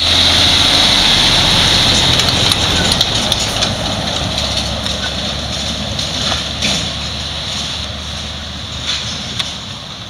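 MAN TGA truck pulling a loaded grain trailer drives past and away, its diesel engine and tyres steadily fading, with a few short knocks from the rig.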